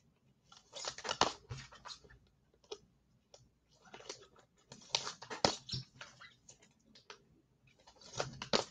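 Typing on a computer keyboard: three short runs of irregular key clicks with pauses between them.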